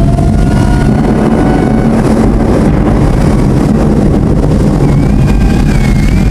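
Loud amplified arena concert sound, heavily distorted by an overloaded camera microphone: a constant wall of booming bass with a few faint gliding synth-like tones above it.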